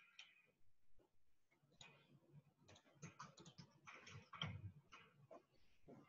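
Faint typing on a computer keyboard: irregular, scattered key presses.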